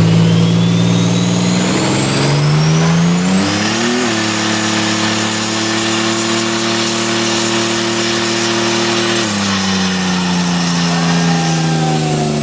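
Chevrolet S-10 Blazer doing a burnout. The engine is held at steady revs, climbs to a higher steady pitch about two to four seconds in, and drops back down about nine seconds in. The spinning rear tyre squeals and hisses throughout.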